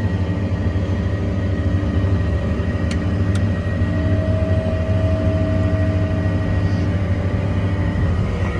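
A 6.0 Power Stroke diesel truck engine runs steadily while driving the hydraulic Quincy air compressor, which has just been switched on. There are two sharp clicks about three seconds in, and a thin whine joins for a couple of seconds in the middle.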